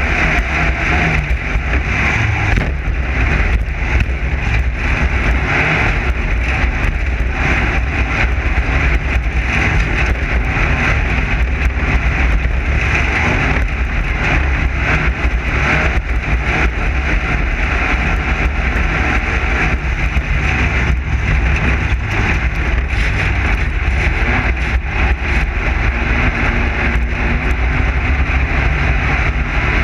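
Class 9 desert race car running at speed, its air-cooled Volkswagen flat-four engine going steadily under heavy wind and road noise. Frequent short knocks and rattles are scattered throughout.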